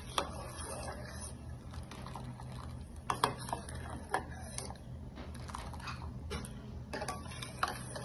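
Faint clinks and scrapes of a steel spoon stirring heating milk in a metal saucepan, a few light knocks scattered over a low steady hum.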